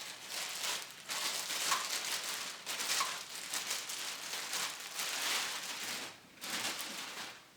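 Packaging rustling and crinkling irregularly as a polisher is worked free of its box.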